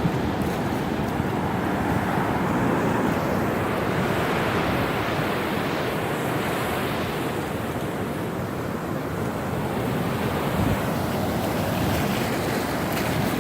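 Ocean surf washing and breaking on the beach, stirred up by the approaching hurricane, with wind buffeting the microphone. The surf swells louder a few seconds in.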